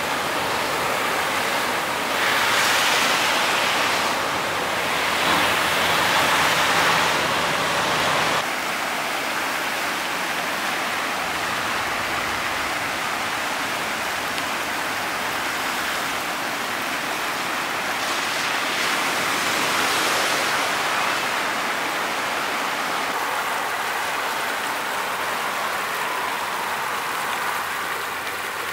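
Vehicles driving through deep floodwater on a street, tyres throwing up spray in two louder surges in the first eight seconds; the sound cuts off abruptly and gives way to the steady rush of floodwater running along a curb and pouring over a concrete drain edge.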